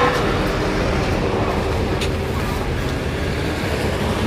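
Steady low hum of a running engine, with a faint voice at the very start and a single sharp click about two seconds in.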